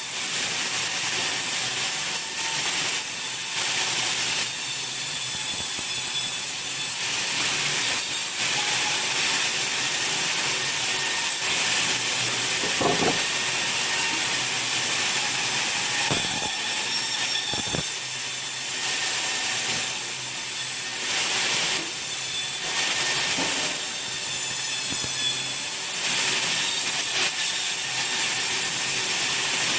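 Sawmill saw cutting through timber: a steady high hiss that swells and eases, with a few knocks around the middle.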